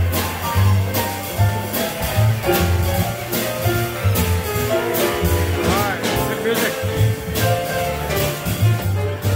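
A small live band of piano, plucked upright double bass and drum kit playing, the bass walking in steady low notes under piano lines and regular cymbal strikes.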